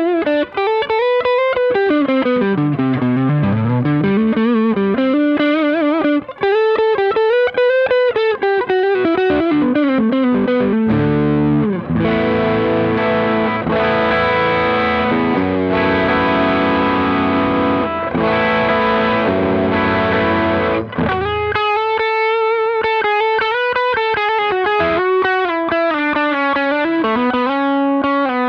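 Electric guitar driven by a Maxon OD808 overdrive pedal into the clean channel of a Fender Hot Rod Deluxe IV tube combo amp, giving a mildly overdriven tone. It plays a lead line with string bends and vibrato, then sustained chords in the middle, then more bent lead notes near the end.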